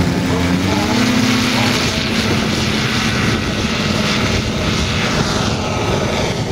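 Large-scale radio-controlled warbird model's piston engine opening up to full throttle, its pitch rising about a second in, then running flat out with propeller noise as the model makes its takeoff run.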